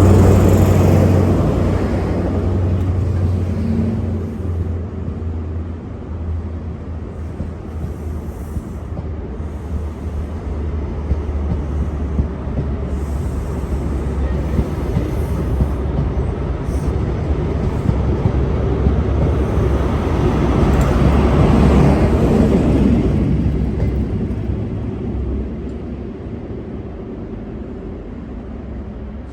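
A train running on the line with a steady low engine hum. It is loud at the start and eases off, then builds to its loudest about three quarters of the way through and fades away near the end.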